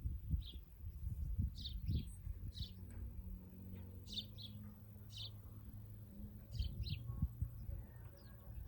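Birds chirping in short, separate calls, a dozen or so scattered irregularly, over a low, uneven rumble.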